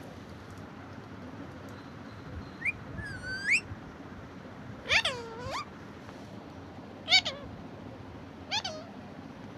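Caged green parakeets calling: four short calls, each sweeping up in pitch at the end, the loudest about seven seconds in, over a steady low hum.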